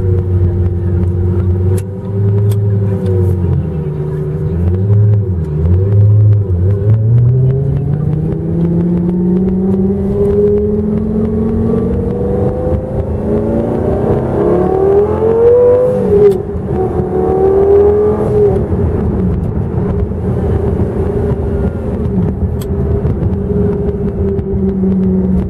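Heffner twin-turbo Lamborghini Gallardo's V10 engine heard from inside the cabin. It runs low and uneven as the car pulls away, then rises steadily in pitch under acceleration to a peak about fifteen seconds in. It drops briefly, pulls again, and settles to a steady cruise near the end.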